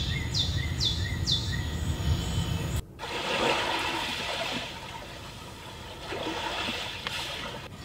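Recorded nature-sound tracks from the Genesis GV80's built-in ambient-sound feature, playing through the cabin speakers. For about three seconds birds chirp in a repeating falling call over a low rumble. The sound then cuts to calm sea waves washing in and out, swelling twice.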